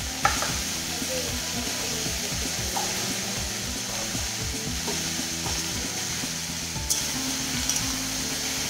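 Food sizzling in hot oil in a black kadai while a metal spatula stirs and scrapes it, with a sharp clank of the spatula against the pan just after the start and lighter clinks near the end.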